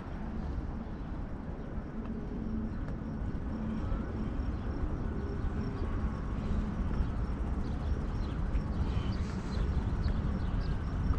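Outdoor street ambience: a steady low traffic rumble, with faint bird chirps in the last few seconds.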